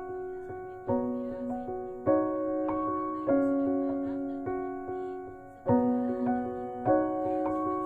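Background music: a slow piano piece, with chords struck roughly every second and each one dying away before the next, and one longer held chord in the middle.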